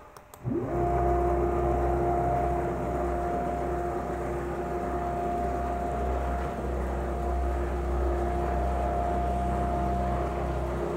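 Closed-loop stepper motors driving a CNC router's Y-axis gantry along its rails under LinuxCNC control. It ramps up about a second in, then holds a steady two-tone whine over a low hum at constant traverse speed.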